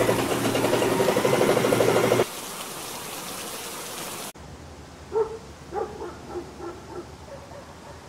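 Heavy rain noise that stops abruptly about two seconds in. Later, a series of short, pitched animal calls comes at irregular intervals.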